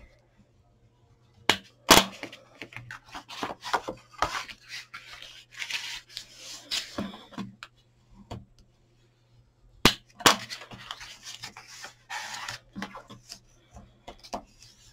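Bone folder rubbed firmly along the creases of folded cardstock: dry scraping strokes in two long stretches, with a few sharp clicks and taps of the card and tool, the loudest about two seconds in.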